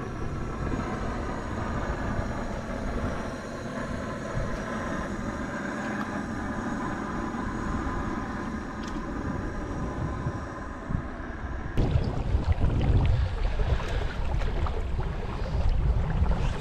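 A motorboat engine droning steadily in the distance, with a faint hum of engine tones. About twelve seconds in, the sound cuts suddenly to louder, low rumbling of wind on the microphone.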